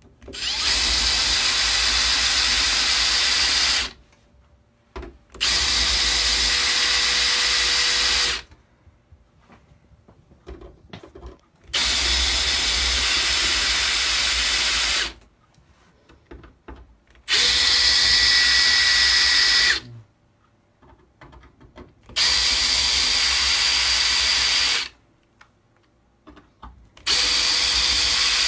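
Cordless drill with a twist bit countersinking screw holes in a TV's sheet-metal back plate, run in six bursts of about three seconds each at a steady speed with short pauses between.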